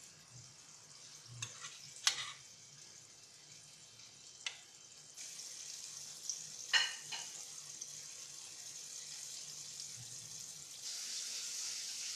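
A metal spoon stirring cream sauce with fish fillets in a stainless steel pot, clinking against the pot a few times, over the faint hiss of the simmering sauce.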